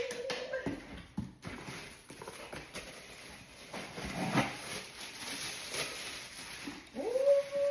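Rustling packaging and light knocks and clicks as pots and lids are handled and unpacked from a box. Near the end, a short hummed 'mm' from a woman's voice.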